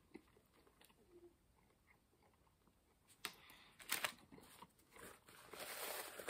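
Faint chewing of a bite of a fried chicken sandwich, then from about three seconds in a few sharp clicks and paper rustling that grow louder near the end as a paper napkin is handled at the mouth.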